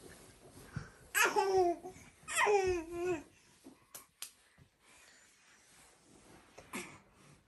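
A baby babbling: two drawn-out, high-pitched calls of about a second each, each falling in pitch at its end, followed by two faint clicks.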